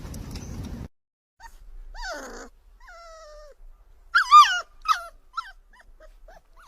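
A dog whining and yelping: a string of short, high-pitched cries that slide down in pitch. The loudest is a wavering cry about four seconds in, followed by a few brief yips.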